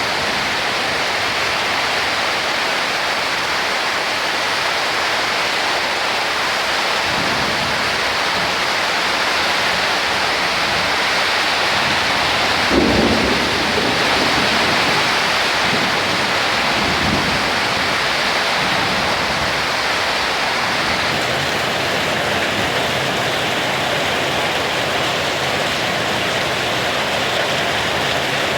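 Heavy rain pouring steadily during a summer thunderstorm, with thunder rumbling low about halfway through and again a few seconds later.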